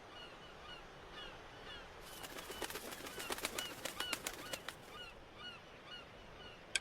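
Seabirds, likely gulls, calling in short falling cries about twice a second over a steady hiss. From about two to five seconds in comes a rapid run of sharp clicks and knocks, and a single sharp click near the end.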